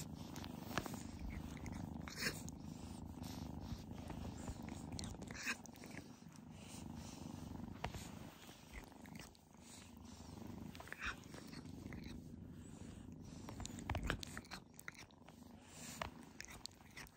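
Tabby kitten purring steadily as its head is stroked, with a few light clicks and rustles on top.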